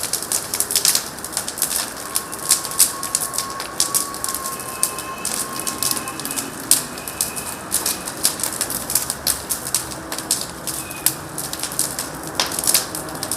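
Birds fluttering and scratching about: a dense, irregular run of sharp clicks and rustles, with a faint held whistle from about two to six seconds in.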